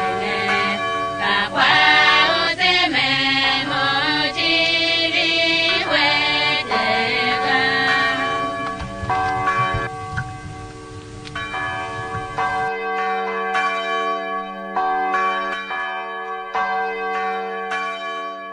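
Church bells ringing in a peal, stroke after stroke. Voices sing over them in the first half, then the singing fades and the bells carry on alone for the rest.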